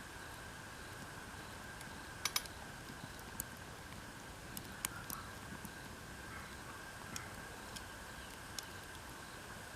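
Wood fire crackling: sharp, irregular pops, the loudest a quick pair about two seconds in, over a faint steady hum.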